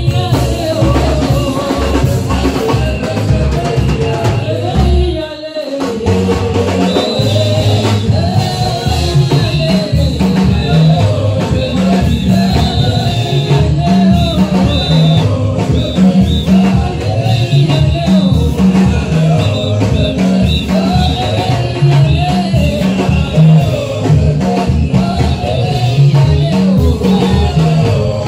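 Live gospel praise music: a woman sings the lead through a microphone over a band with a moving bass line and drums. The music briefly drops out about five seconds in, then carries on.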